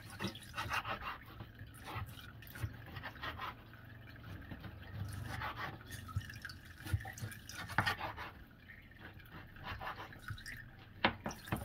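Kitchen knife cutting a rack of raw pork back ribs into single ribs between the bones on a wooden cutting board: irregular soft taps and knocks of the blade against the board, a few sharper ones near the end.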